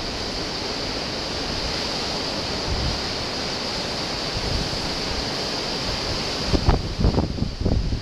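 Heavy storm surf breaking on a rocky shore, a steady rush of waves and spray. From about six and a half seconds in, strong wind gusts buffet the microphone in uneven low thumps.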